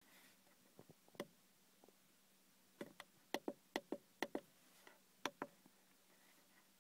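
A series of sharp plastic clicks from car control buttons being pressed and released to scroll the instrument-cluster display menu. Many come in quick press-and-release pairs, thickest in the middle, against a quiet cabin with the engine off.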